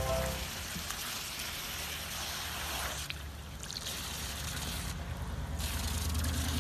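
Water hissing from a garden hose spray nozzle, with splashing as a dog bites and paws at the jet. The spray drops off briefly about three seconds in and again about five seconds in.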